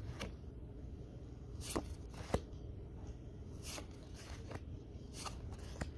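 Pokémon trading cards being flipped through by hand, each card slid off the front of the stack to the back with a soft flick: about seven flicks, irregularly spaced, over a faint steady hum.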